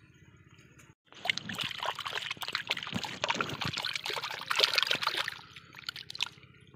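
Muddy water splashing and sloshing in a small pit as a fish thrashes in the hands grabbing it. It starts suddenly about a second in, with many wet smacks, and dies away shortly before the end.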